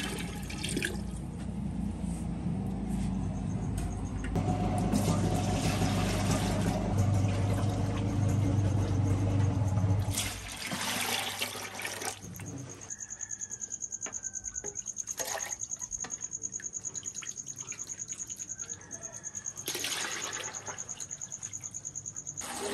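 Red oily siri paye broth being scooped with a steel mug and poured into a clay pot and a plastic bucket: a long run of splashing and glugging liquid, then separate pours a few seconds apart. A steady low hum runs underneath, and a faint steady high tone joins about halfway through.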